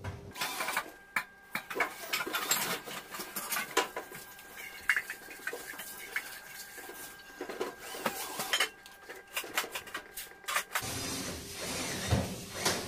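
Metal screws and sheet-metal parts clinking and clattering as they are handled, a quick series of sharp clicks. About eleven seconds in, a steadier rushing noise starts under the clicks.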